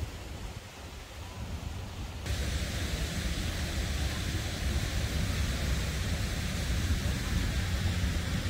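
Steady rushing outdoor noise with wind buffeting the microphone; it jumps louder about two seconds in.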